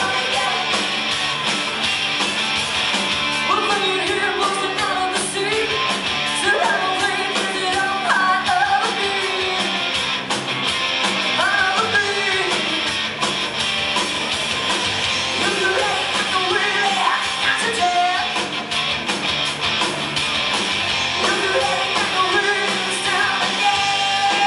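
A live rock band plays electric guitars, bass guitar and drums while a woman sings lead.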